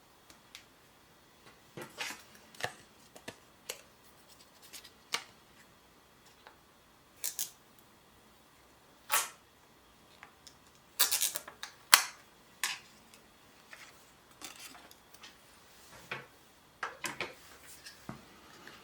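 Irregular clicks, taps and short crinkly rustles of a phone and the pieces of a lens-protector kit being handled. The loudest, busiest stretch comes about eleven to twelve seconds in.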